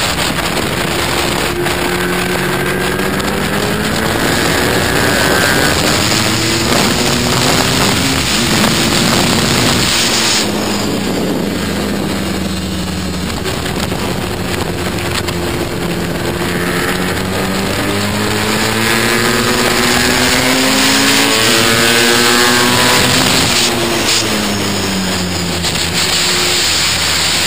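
Onboard sound of a BMW boxer-twin race motorcycle ridden hard: the engine revs climb and drop back through gear changes, fall away sharply for braking about ten seconds in and again near the end, then pull up again, with wind rushing over the microphone throughout.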